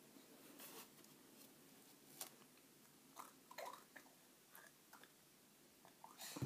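Near silence with faint, scattered little clicks and wet mouth sounds as a baby gums and mouths a small cat-toy ball.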